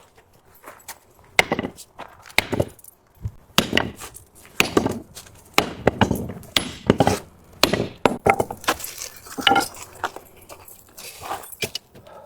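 Sledgehammer blows on a forge-heated steel plough leg, straightening the bent leg. The heavy strikes come again and again at an uneven pace of about one to two a second.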